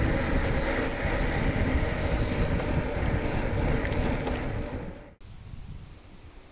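Wind buffeting the microphone of a camera riding along on a moving bicycle, a steady rumbling rush. It cuts off abruptly about five seconds in, leaving a much quieter background.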